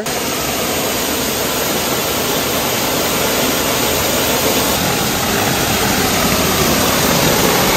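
Waterfall close up: a steady, loud rush of falling water spread evenly across all pitches, cutting in and cutting off abruptly.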